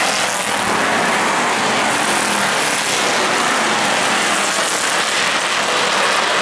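A field of street stock race cars with their engines running as they circulate the track, a steady, loud blend of engine noise with no single car standing out.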